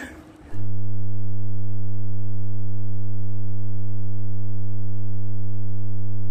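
A loud, steady, low electronic buzz tone at one unchanging pitch, starting about half a second in, with all other sound dropped out beneath it.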